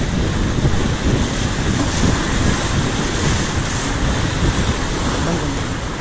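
River water rushing steadily around an inflatable raft, with wind buffeting the microphone.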